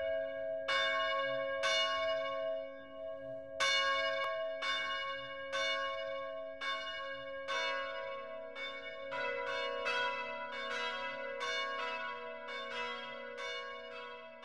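Church tower bells ringing, each stroke hanging on with a long hum. The strokes come about once a second at first; about halfway in, a second bell joins and the strokes come faster and overlap.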